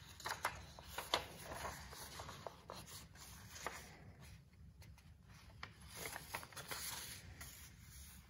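A sheet of paper rustling and crinkling as it is handled and folded, with a few sharp crackles in the first second or so and another stretch of rustling about six seconds in.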